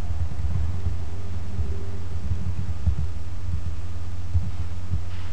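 Steady low electrical hum with irregular soft low thumps.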